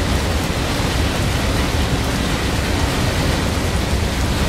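Thunderstorm rain: a steady rushing noise with a low rumble underneath and no single distinct crack or clap.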